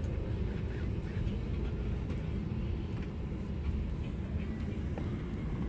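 Low, steady engine and road rumble of a shuttle van, heard from inside its cabin as it moves.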